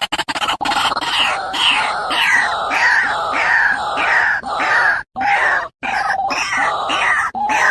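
A bird giving harsh, repeated calls, each falling in pitch, about two a second, with two abrupt breaks in the sound about five and six seconds in.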